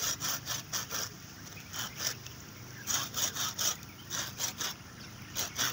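Folding pruning saw cutting through a cassava stem: quick back-and-forth strokes, about five a second, in short runs with brief pauses between.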